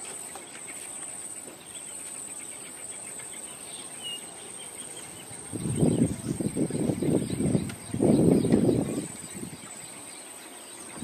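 Outdoor riverside ambience of faint bird chirps over a steady high-pitched whine. About halfway through come two loud bouts of low rumbling noise, each lasting a second or two.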